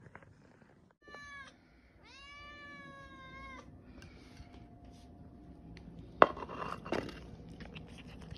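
A domestic cat meows: a short call about a second in, then one long, drawn-out meow. Later comes a sharp knock, the loudest sound here, followed by a few clicks and rustling.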